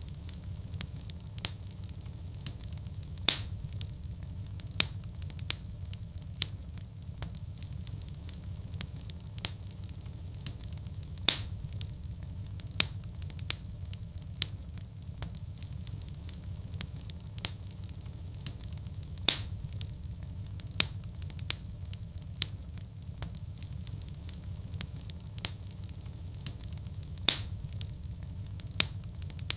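Fireplace fire crackling over a steady low rumble, with frequent sharp snaps and a louder pop about every eight seconds.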